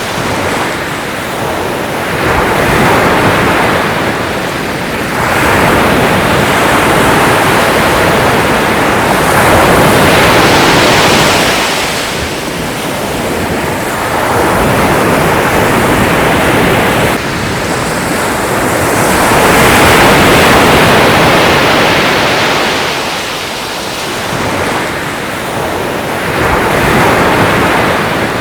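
Sea waves breaking and washing in, one surge after another, each swelling and fading over several seconds.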